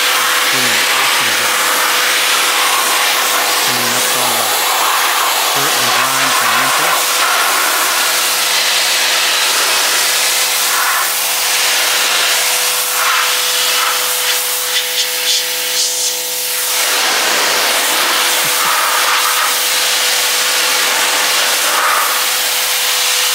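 Pressure washer running, its spray hissing steadily against house siding over a constant motor tone, with a brief stutter in the spray partway through.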